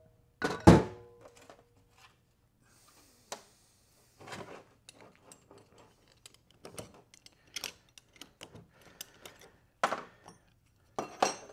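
Steel transmission clutch drums and parts clinking and knocking on a metal workbench as they are handled and set down. A loud metallic clank about half a second in rings briefly, followed by scattered lighter clicks and taps, with a few louder knocks near the end.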